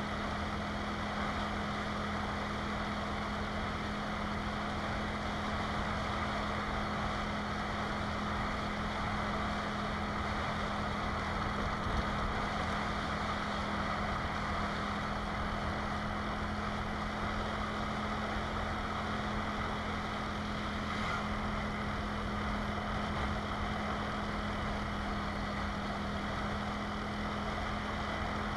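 Motorcycle engine running steadily at cruising speed while riding, a constant-pitched hum under a hiss of wind and road noise.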